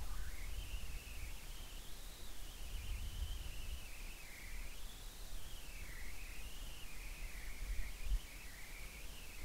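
Faint background noise: a low rumble with a thin high whine that drifts slowly up and down in pitch.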